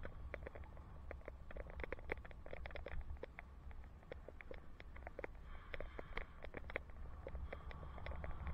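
Low wind rumble on a helmet-mounted camera microphone while cycling, with frequent irregular ticks and light rattles throughout.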